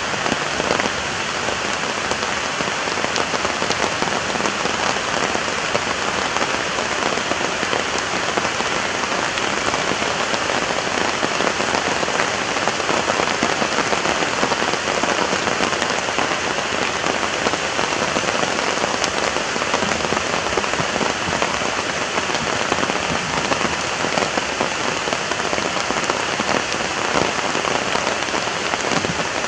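Steady rain falling, with scattered single drops tapping close by.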